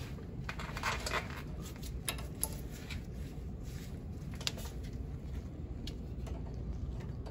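Pliers working a cotter pin out of the upper control arm ball joint: a few light, scattered metal clicks and scrapes over a low steady hum.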